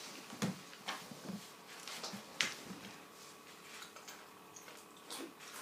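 Faint scattered clicks and light knocks of food being handled and eaten by hand, with a faint steady room hum.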